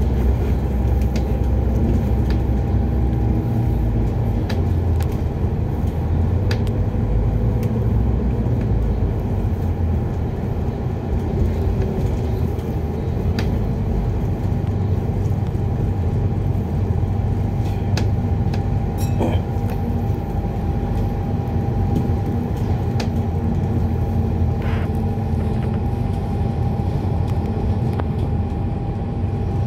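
Alexander Dennis Enviro 400 Hybrid double-decker bus on the move, heard from inside: a steady low rumble with a constant high tone running through it, and occasional sharp clicks.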